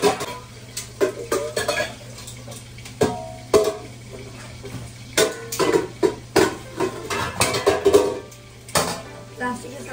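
Metal pots, pans and lids clanking and knocking on a kitchen counter as they are handled and set down: a series of irregular sharp knocks, some ringing briefly.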